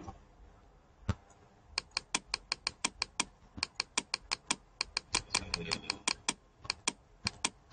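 Rapid sharp clicks of computer input, one about a second in, then quick runs of roughly six a second, as an extrusion amount is stepped up in the modelling software.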